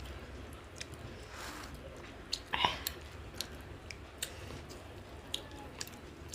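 Chewing of fish curry up close, with many small wet mouth clicks, and one louder brief sound about two and a half seconds in.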